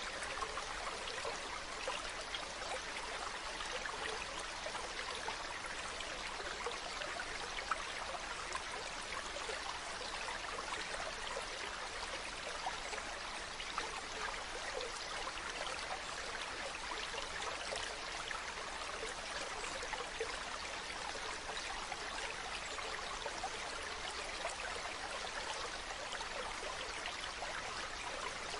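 Mountain stream running steadily over rocks, water splashing and trickling continuously.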